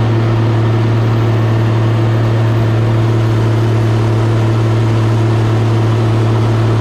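Diesel engine of heavy farm machinery running at constant revs, a steady loud drone that holds unchanged.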